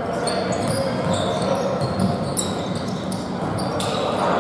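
Indoor basketball game in play: the ball bouncing on the court, with short, high sneaker squeaks scattered throughout over a steady din of gym noise.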